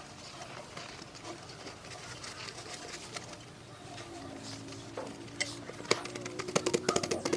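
Hand-work noises on a workpiece: light scraping and rubbing, then from about five seconds in a quick run of sharp clicks and taps, several a second.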